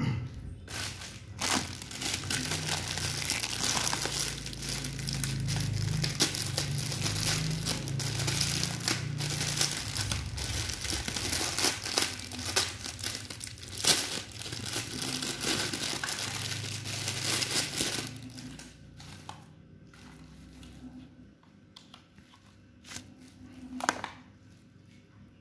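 Plastic packaging crinkling and rustling as it is handled and pulled open, a dense crackle that goes on for about 18 seconds, then drops to scattered quieter crinkles with one sharp crinkle near the end.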